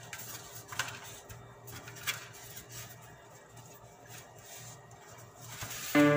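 Quiet rustling and a couple of light taps from tortillas being folded by hand on a metal plate, over a steady low hum. Guitar music comes in at the very end.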